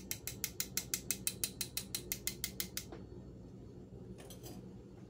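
Hand-held powdered-sugar sifter clicking rapidly as it is worked, about seven clicks a second, dusting sugar over a crepe. The clicking stops about three seconds in.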